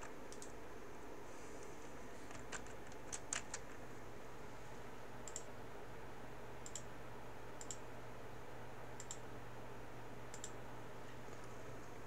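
Faint, scattered clicks of a computer mouse, about ten of them at irregular intervals of roughly a second, over a steady low hum.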